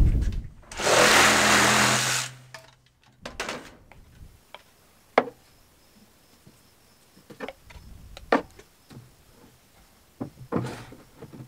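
A short, loud rushing burst with a low hum about a second in, then scattered knocks and clicks of PVC pipe fittings being handled and set down on a wooden workbench.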